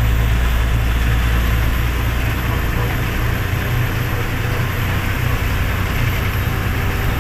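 Loaded sand lorry's diesel engine running steadily at road speed, with tyre and road noise, heard from inside the cab as a steady low drone.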